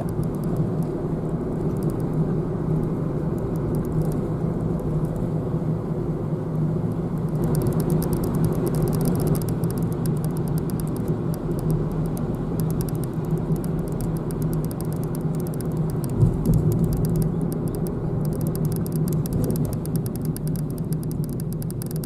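Car driving along a road, heard from inside the cabin: a steady hum of engine and tyre noise, with one brief bump about sixteen seconds in.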